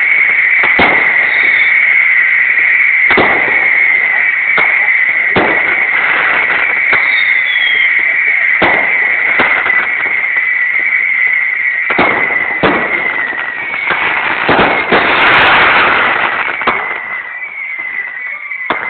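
Fireworks display: a run of sharp bangs from exploding aerial shells, roughly one a second, over a steady high whistle. About fifteen seconds in comes a dense, loud crackling stretch, followed by a few short falling whistles.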